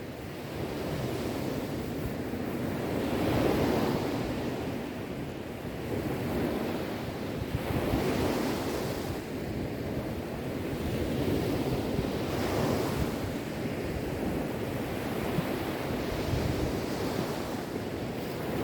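Sea waves breaking, the surf swelling and falling back about every four to five seconds.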